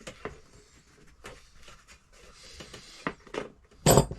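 Metal hand tools from a socket set being handled: a few light clicks and clinks, then one louder knock near the end as a piece is set down.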